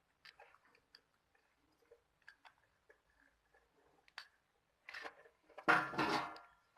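Light clicks, scrapes and rustles of wires being handled and fastened to a doorbell's terminals, with a brief louder pitched sound near the end.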